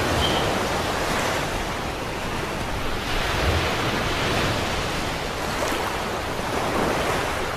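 Surf washing onto a sandy beach, a steady rush that swells and eases gently, with wind rumbling on the microphone.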